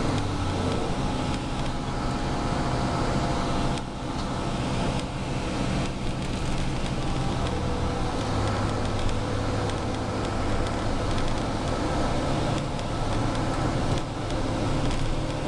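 Bus interior at motorway speed: steady engine hum with tyre and road noise, heard through the cabin. The engine note changes about eight seconds in.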